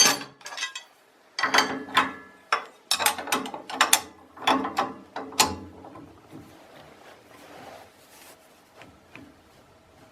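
Metal clicks, clinks and rattles from refitting a table saw blade on its arbor, coming in quick clusters over the first six seconds, then only a few faint ticks.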